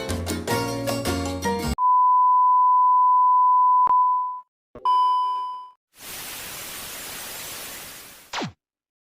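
Outro music cuts off about two seconds in, followed by a steady high beep held for about two and a half seconds, a second shorter beep, then about two seconds of hiss like television static that ends with a quick falling tone.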